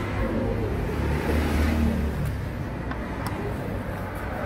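A steady low rumble of a motor vehicle, swelling briefly about a second in, with two light clicks as a T-handle socket wrench turns a bolt on a scooter's plastic CVT cover.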